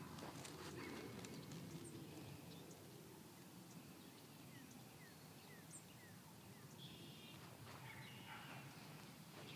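Near silence: faint open-air hiss, with a few faint, short, high chirps from small birds in the middle.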